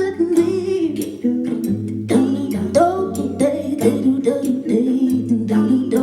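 Improvised female singing in layered harmonies over a held low note, with short percussive hits.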